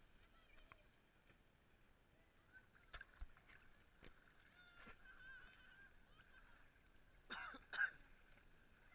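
Faint, muffled shallow sea water lapping at the surface, with a few knocks and two louder splashes about three-quarters of the way through.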